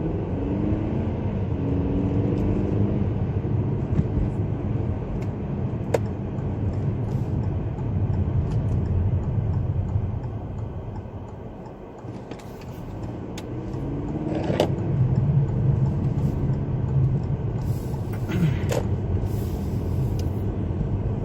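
Car driving on a road: a steady low rumble of engine and tyres with some pitched engine hum. The rumble fades about halfway through, then builds back up.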